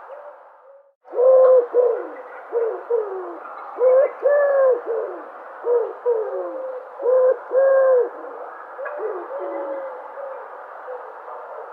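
A dove cooing: a run of short, low coos in quick groups, several of them gliding downward at the end, over a steady hiss. The sound drops out briefly about a second in, then the cooing starts.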